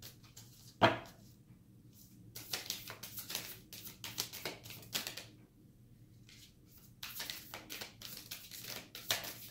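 A deck of tarot cards being shuffled by hand, in two bursts of quick flicking clicks. There is one sharp knock about a second in.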